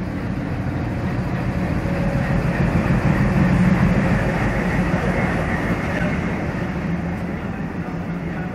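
Broad gauge diesel locomotive running past close by at the head of a passenger train. Its engine drones steadily and is loudest about three and a half seconds in, then the coaches roll by as the sound slowly eases.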